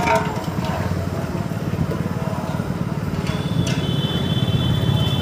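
Small motorcycle engine running steadily at low speed, close to the microphone. About three seconds in, a thin, high, steady tone joins it and holds.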